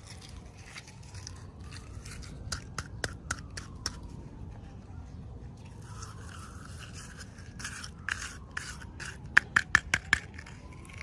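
Small plastic pieces and packaging being handled, with clusters of sharp little clicks and rustling, one about a quarter of the way in and a louder one near the end.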